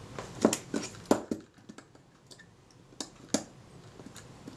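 Light clicks and taps of small screws and metal parts being handled on a Kodak Retina IIIc camera's top plate: a quick run of four in the first second and a half, then two more about three seconds in.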